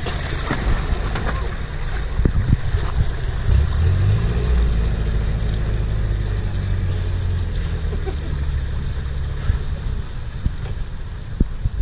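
Mitsubishi L200 pickup's engine revving up a few seconds in and running steadily under load as it drives through a shallow water-filled channel, with water washing around the wheels; the engine falls away near the end.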